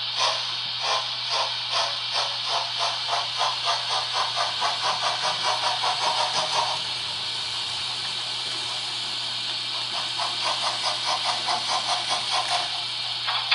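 Model steam locomotive's sound decoder chuffing over a steady steam hiss and a low hum. The chuffs quicken from about one to about four a second as the locomotive pulls away, then stop about halfway through. After a pause they start again at about four a second and stop shortly before the end.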